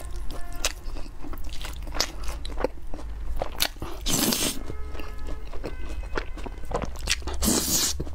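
Close-miked slurping and chewing of noodles. Wet mouth clicks and chewing run throughout, with two loud slurps, about four seconds in and again near the end.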